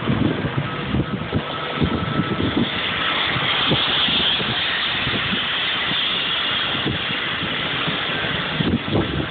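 Steady rush of wind and road noise while riding an electric scooter, with irregular low buffeting of wind on the microphone.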